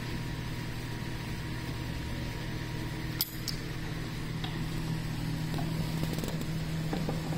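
Steady low machine hum, the background drone of a fan or ventilation running, with two light clicks about three seconds in.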